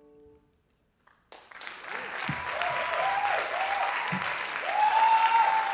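The last held notes of a piece fade away, a brief hush follows, and then about a second and a half in a concert audience breaks into applause with cheers and whoops that swell toward the end.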